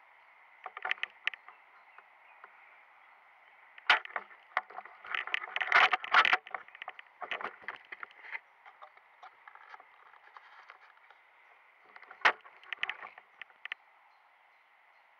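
Scattered clicks, knocks and rustling in short clusters, with a sharp click about four seconds in and another near the end, over a faint steady hiss; the sound is thin and muffled, as through an action camera's case.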